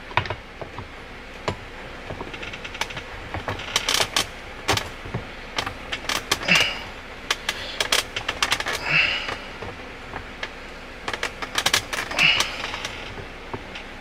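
Cliq Tuning short shifter being worked by hand while it is mocked up in a BMW E30's centre console: clusters of mechanical clicks and clacks, with three short scraping sounds in the second half.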